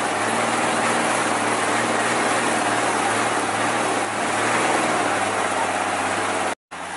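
A vehicle engine idling steadily under a constant noisy outdoor background. The sound drops out for a moment near the end.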